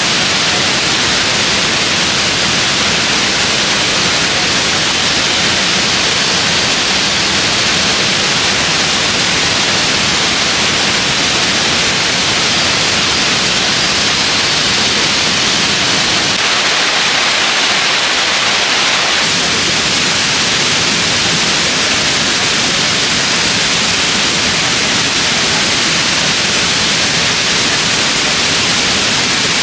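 Rushing water: a loud, steady hiss with no breaks.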